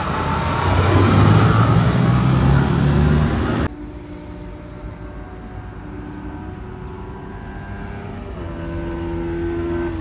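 Motorcycle engine running on the road with a loud rush of wind. About four seconds in it cuts off abruptly to a quieter, steady engine hum, whose pitch steps up near the end.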